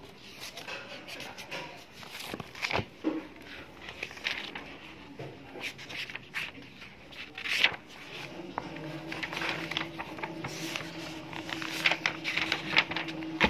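Paper rustling and notebook pages being flipped and handled on a tabletop, with scattered short scrapes and taps. A low steady hum comes in about two-thirds of the way through.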